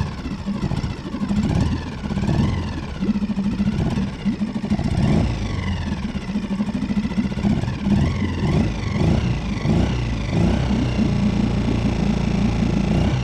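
Small Suzuki outboard motor running steadily and pushing the kayak along, with a higher whine that rises and falls in pitch now and then.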